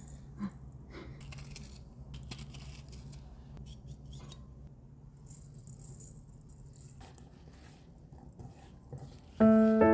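Fresh chives and shrimp being seasoned and tossed by hand in a large metal mixing bowl: light clicks of utensils on the bowl and a crisp rustling of the greens, over a faint steady hum. Piano music comes in near the end.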